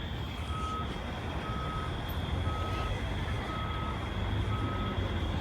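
Fire truck backing up: its reversing alarm beeps about once a second, five times, over the steady low rumble of the diesel engine.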